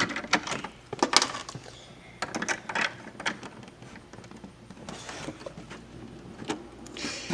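Small plastic LEGO pieces and a minifigure clicking and tapping as they are handled and pushed into place, in about ten irregular knocks.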